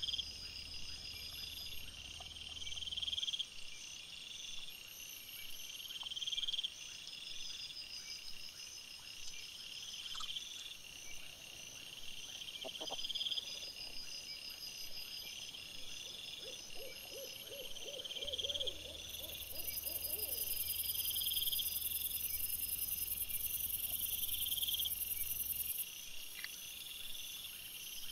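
Night insects, crickets, chirping in a steady repeating pattern of high chirps and trills. About two-thirds of the way through there is a short run of rapid low pulses.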